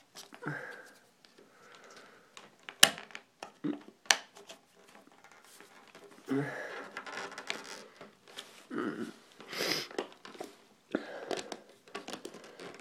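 Stiff plastic clamshell blister pack being cut and pried apart by hand: crinkling, scraping and irregular sharp plastic clicks and snaps. The loudest snap comes about three seconds in.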